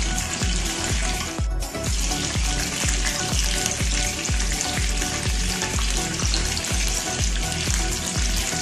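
Pieces of kanduli (sea catfish) sizzling as they fry in hot oil in a pan; the sizzle cuts out briefly about a second and a half in. Under it runs background music with a steady bass beat, about two and a half beats a second.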